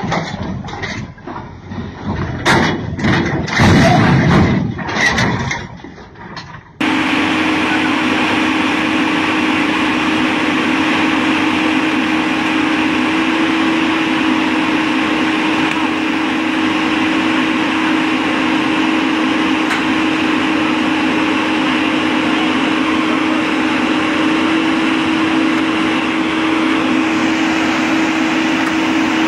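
Voices and a few knocks for about seven seconds, then a sudden cut to a loud, steady mechanical drone with one constant low hum, typical of a heavy machine's engine running.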